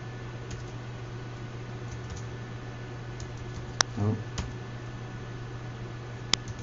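A few isolated clicks of computer keyboard keys, with the loudest about four seconds in and again near the end, over a steady low electrical hum. A brief murmured vocal sound comes just after four seconds.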